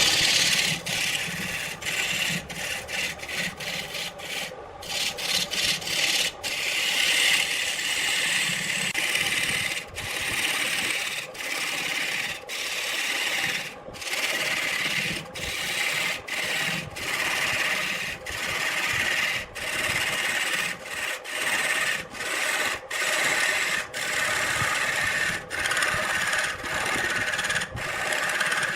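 Wood being worked on a lathe: a rasping, rubbing scrape, broken into repeated strokes by short gaps about every half second to a second.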